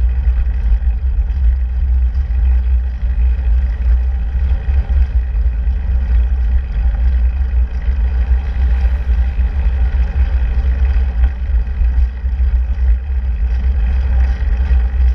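Wind buffeting the microphone of a handlebar-mounted camera on a moving bicycle: a loud, steady low rumble with a hiss of tyre and road noise over it.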